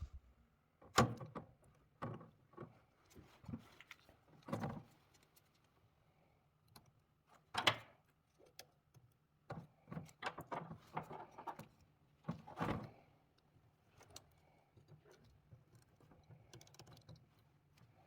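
Irregular clicks, taps and knocks of small hard objects being handled and set down on a workbench, with three louder knocks about a second in, near the middle and about two-thirds through. A faint steady low hum lies under them.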